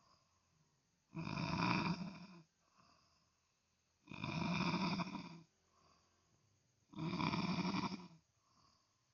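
A person snoring heavily: three long snores about three seconds apart, with a much fainter breath between each.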